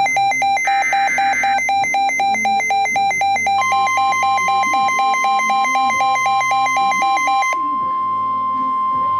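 Weather radio alert signals: an electronic alarm beeping in a fast pulse, about four beeps a second, with a short burst of SAME digital header tones about a second in. About three and a half seconds in, the steady weather radio warning tone starts and keeps sounding after the beeping stops at about seven and a half seconds. Together these announce an incoming warning broadcast.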